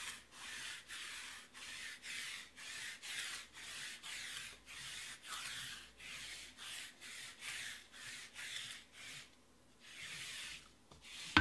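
Baseball trading cards sliding one against another in quick swishes, about two a second, as a stack is flipped through card by card. The strokes pause briefly near the end, and a sharp tap comes right at the close.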